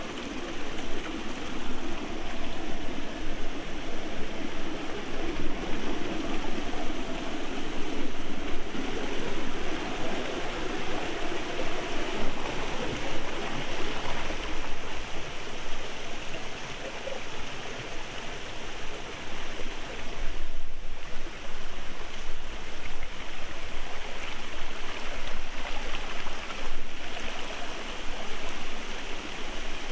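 A small rocky forest stream running over low cascades, a steady rush and splash of water.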